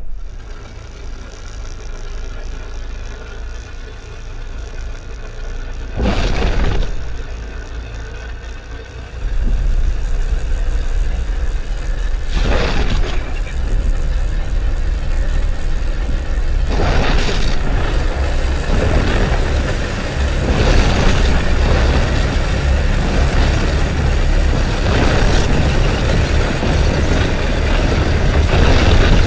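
Layered monster sound effects: a heavy, continuous low rumble that grows louder, broken by three sudden harsh bursts.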